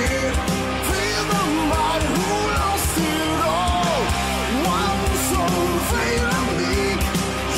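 Celtic rock song played on air: a sung vocal line over a full band with a steady drum beat.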